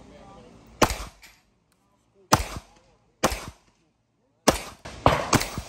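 Pistol shots from a Staccato pistol being fired, six in all. There are four single shots roughly a second apart, then two close together near the end.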